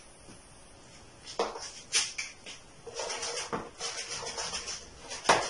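Whiteboard eraser wiped across the board in a series of quick rubbing strokes that start after a quiet first second and come thickest in the second half, with a sharp tap near the end.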